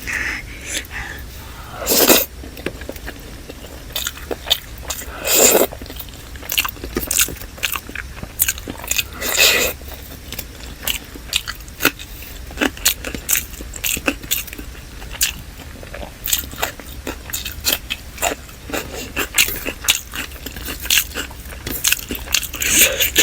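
Close-miked eating of chicken biryani and salad: steady wet chewing and mouth smacks with crunchy bites, and a few louder bites about 2, 5.5 and 9.5 seconds in.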